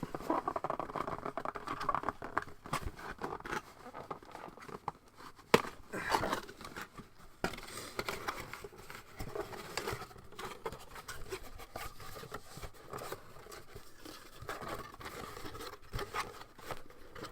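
Cardboard box and packaging being handled: irregular rustling, scraping and light tapping of card, with a few sharper knocks.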